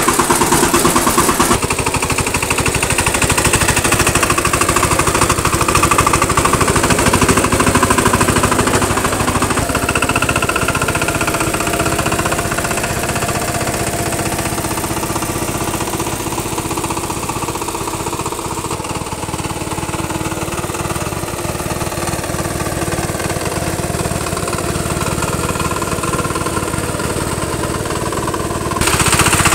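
VST two-wheel power tiller's single-cylinder diesel engine running steadily with a fast, even knocking beat as its cage wheels plow through flooded paddy mud.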